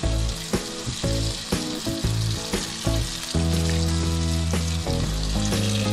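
Urad dal batter dumplings frying in hot refined oil in a karai, with a steady sizzling hiss as each dollop hits the oil. A background tune of sustained notes plays along with it.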